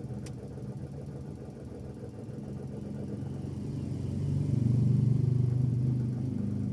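Suzuki Every DA17V minivan's three-cylinder engine idling with a low rattling noise that shows only at low idle, around 800 rpm. The owner suspects the drive-belt tensioner bearing, though a new bearing has not cured it. From about three seconds in the accelerator is pressed, and the engine note rises and grows louder, peaking about five seconds in before easing back a little.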